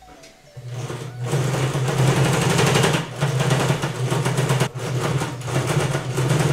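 Electric household sewing machine stitching through layered fabric at a steady speed. It starts about half a second in and dips briefly twice.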